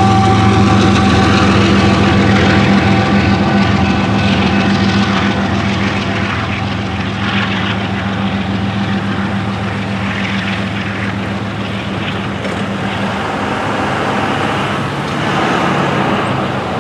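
Diesel engines of trucks waiting at a railroad crossing, a steady low hum that eases off partway through, then vehicles driving over the tracks as the gates go up, louder near the end.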